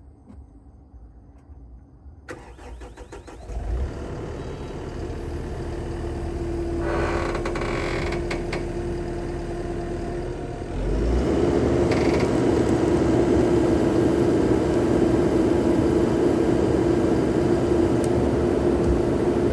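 Skid steer engine starting and running, with a steady tone over the engine noise. About eleven seconds in it steps up to higher revs and runs louder.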